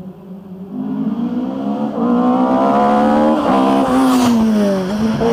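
Opel Kadett C rally car's engine at high revs under hard acceleration, getting louder over the first two seconds as the car approaches, then holding loud with a brief dip in revs near the end.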